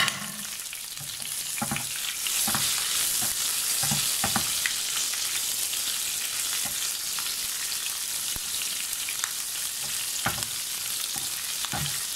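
Green chillies sizzling in hot oil in a frying pan, a steady hiss that grows louder about two seconds in. A wooden spatula stirs them and knocks against the pan now and then.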